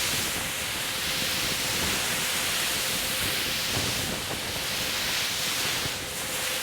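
Ocean surf breaking on a beach: a steady rushing wash of water.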